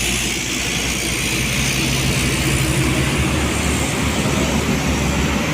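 Coach bus driving past, its diesel engine running under steady tyre and road noise.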